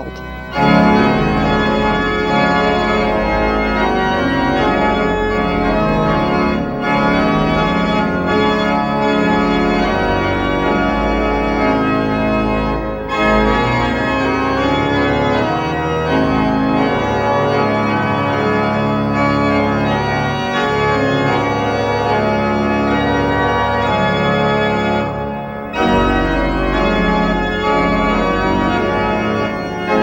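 Pipe organ playing a full passage of sustained chords over a deep pedal bass. It pauses briefly between phrases, and the pedal bass drops out for a stretch past the middle, then comes back near the end.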